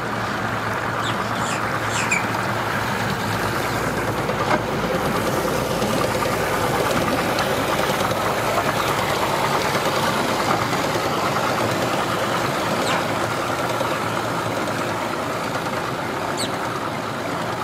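Mercury 175 Pro XS outboard motor running steadily, with churning prop wash, as it powers a bass boat up onto its trailer.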